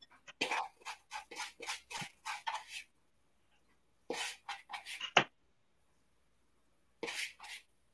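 Hands squishing and kneading raw ground lamb with seasoning in a bowl: a run of quick wet squelches, a second run about four seconds in, and a short one near the end.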